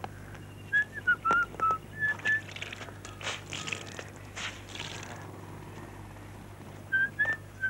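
A man whistling a tune in short, clear notes in two phrases, one early and one near the end, with a few swishes of wet laundry being shaken out and handled in between.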